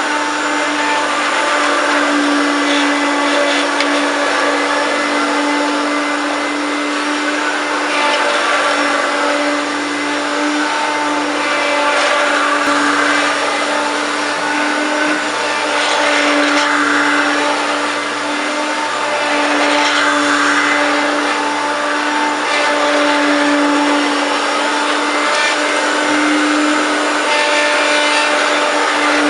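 Hoover Turbopower 1 U2798 upright vacuum cleaner running steadily, its motor hum swelling and easing a little every few seconds.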